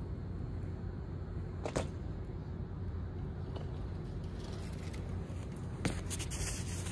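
BMX bike ridden on concrete, with a steady low hum underneath and two sharp knocks from the bike, one about two seconds in and one near the end, followed by a short hiss of tyres scrubbing.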